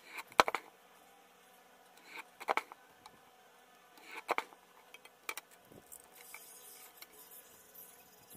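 Paper and a metal ruler handled on a cutting mat while cutting quilling strips: three short bursts of scraping and clicking about two seconds apart, then a few lighter ticks.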